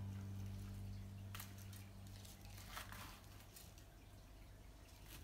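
Faint rustling and a few light clicks of hands handling pine branches and decorations. Soft background music fades out in the first few seconds.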